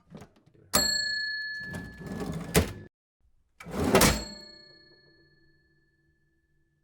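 Old mechanical cash register being rung up. A bell dings about three-quarters of a second in over a rattling mechanism that runs for about two seconds and ends in a sharp click. About a second later a louder clatter, the cash drawer slamming open, sets the bell ringing again, fading over a couple of seconds.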